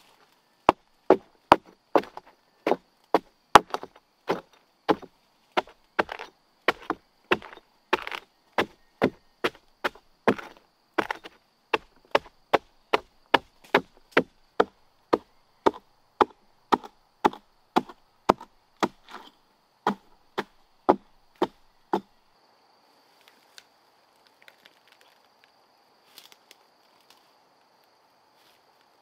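Wood being chopped with a blade, sharp even strokes about three every two seconds, stopping about three-quarters of the way through. Faint steady insect calls are left after the chopping stops.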